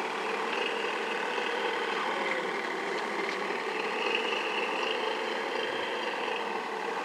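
Motors of radio-controlled model boats running steadily, an even mechanical hum with no change in speed.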